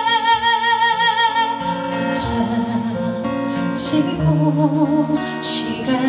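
A woman sings a long held note with vibrato over her own acoustic guitar; the note ends about a second and a half in and the strummed guitar carries on.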